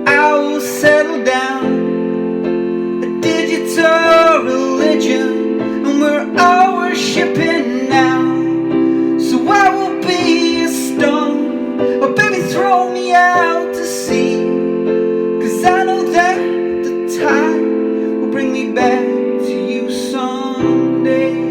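Solo keyboard playing piano-voiced chords, each held for a second or two, with a melody picked out over them.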